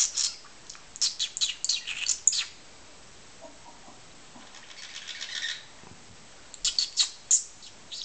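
Pet budgerigars chirping in quick, high clusters: a run of chirps in the first couple of seconds, a softer chattering warble around the middle, and another burst of chirps near the end.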